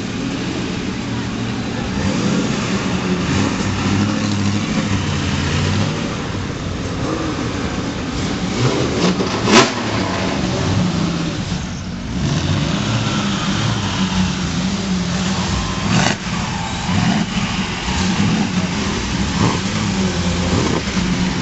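Engines of historic racing cars, among them Jaguar D-types with their straight-six engines, running at low speed as the cars roll past in turn, blipped and revved now and then. A single sharp crack comes about nine and a half seconds in, with a weaker one near sixteen seconds.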